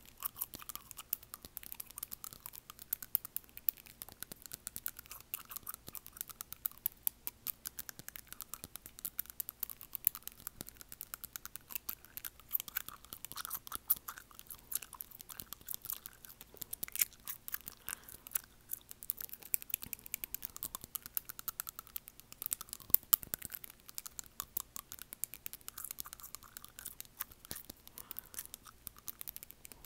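Fingernails tapping rapidly on front teeth right at an earbud microphone, a dense run of sharp clicks, with wet gum-chewing mouth sounds underneath.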